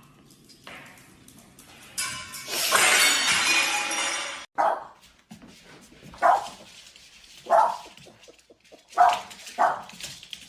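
A loud crash-like noise lasting about two seconds, then a dog barking five times in single barks, spaced a second or so apart.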